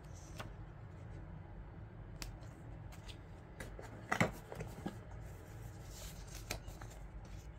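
Packaging and parts being handled during an unboxing: scattered light clicks and rustles, with a louder clatter a little past four seconds in, over a steady low hum.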